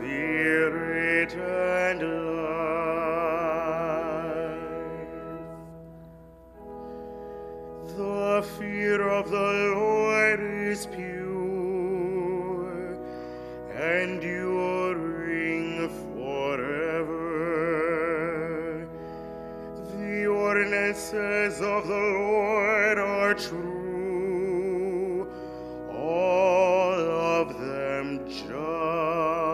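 A cantor singing the responsorial psalm with a wide vibrato, over sustained organ-like accompaniment chords. The sound dips briefly about six seconds in, then the singing resumes.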